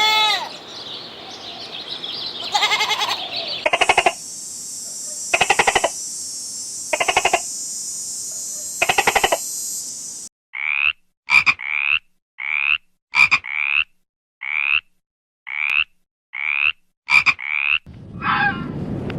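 Frogs calling: a series of pulsed croaks about every 1.5 s over a steady high hiss, then a run of short rising chirp-like calls roughly every 0.7 s, with a few sharp clicks among them. A bleat ends right at the start.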